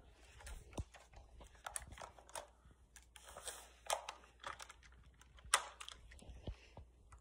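Faint, irregular clicks, rattles and rustles of a plastic toy foam-dart blaster being handled before it is fired.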